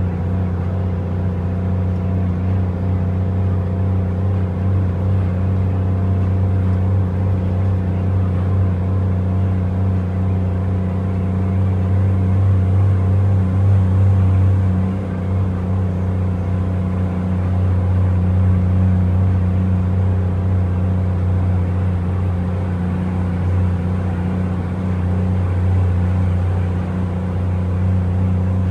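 A heavy truck's diesel engine drones steadily under way, heard from inside the cab, with a deep, even hum. About halfway through the engine note dips briefly, then returns.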